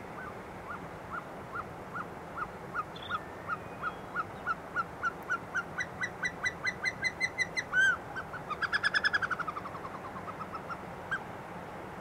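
Male Caucasian snowcock singing. A series of clear whistled notes speeds up and climbs in pitch, peaks in one loud note, then breaks into a quick run of notes falling away, with a few softer notes at the end.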